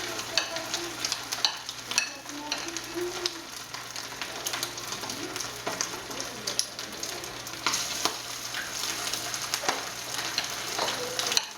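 Ground-beef balls frying in very hot oil in a pan: a steady sizzle with frequent sharp crackles and pops.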